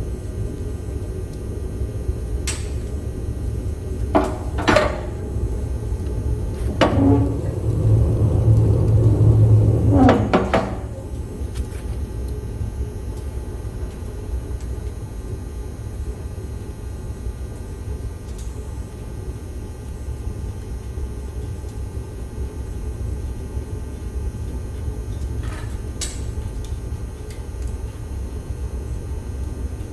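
Wood fire roaring in a cast-iron woodstove with the damper wide open: a steady low rumble, with several sharp clicks and knocks, and the rumble swells briefly about a third of the way in.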